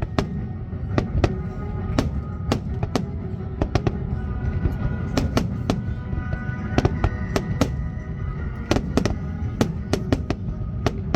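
Aerial fireworks bursting in sharp, irregular bangs about twice a second, over a low continuous rumble, with music playing throughout.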